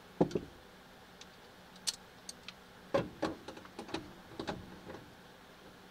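Ratchet wrench and socket clicking and clinking on a rear strut's top-mount nut as it is snugged down: a few scattered clicks at first, then a busier run from about three to five seconds in.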